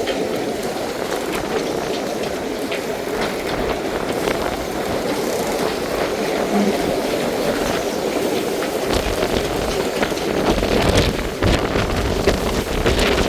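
Strong storm wind blowing and buffeting the microphone, with waves washing around the docked sailboat. The gusts grow stronger and rougher in the last few seconds.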